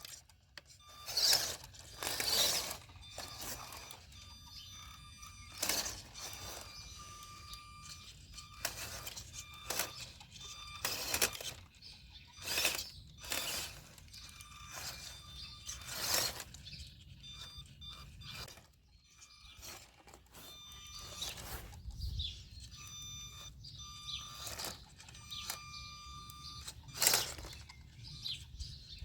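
Small electric RC crawler driving: the motor and gearbox whine in short bursts on and off the throttle, among repeated scrapes and knocks.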